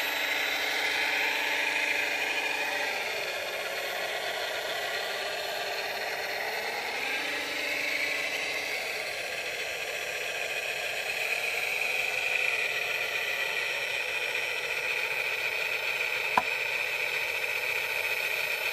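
Radio-controlled model Cat wheel loader driving and working its bucket, with a steady whir of small electric motors and gears. A lower steady hum comes in twice, and there is a single sharp click about sixteen seconds in.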